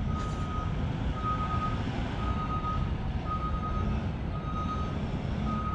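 A vehicle's reversing alarm beeping steadily, one tone about once a second, over a low rumble.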